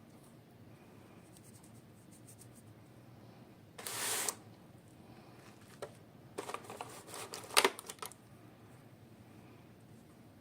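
Hands handling small toy packaging: a short burst of rustling about four seconds in, then a couple of seconds of crinkling and clicking with one sharp click near the end of it.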